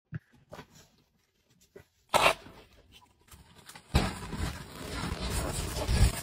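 Packing tape being peeled off a cardboard box: a continuous ripping noise that starts about four seconds in. It follows a single short, sharp sound about two seconds in.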